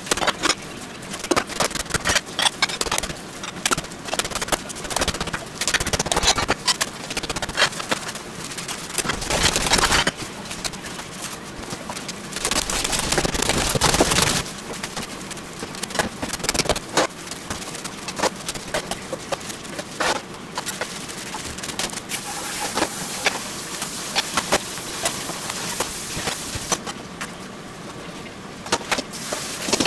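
Ground meat being kneaded by hand in a stainless steel bowl: gloved hands squelching, slapping and scraping through the mixture in a dense, irregular run of wet clicks. Near the end the sound thins out as eggs are cracked into the meat.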